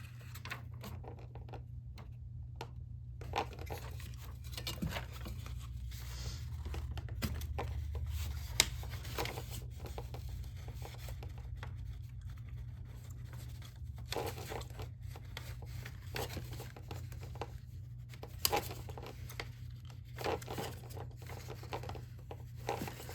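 Plastic rocket nose cone being worked by hand as its two halves are pried and twisted apart: scattered clicks, scrapes and crinkles of hard plastic, over a steady low hum.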